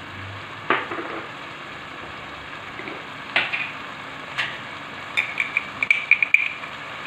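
Chicken pieces frying with onion and tomato in oil in a pot, giving a steady sizzle. A few sharp clicks sound over it, and about five seconds in there is a quick run of light taps.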